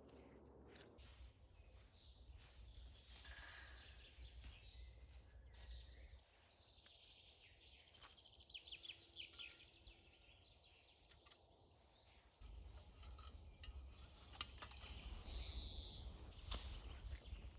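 Near silence: faint forest ambience with a few short bird calls and scattered light clicks and taps. A low rumble comes in about twelve seconds in.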